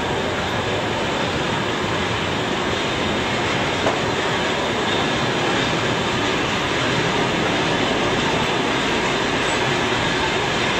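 Passenger train running steadily along the track, heard from on board: a continuous rolling rush of wheels on rail, with one sharp click about four seconds in.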